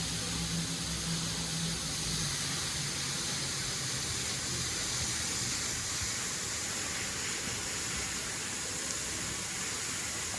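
Steady rushing of a tall waterfall plunging into a pool, with a low hum fading out in the first two seconds.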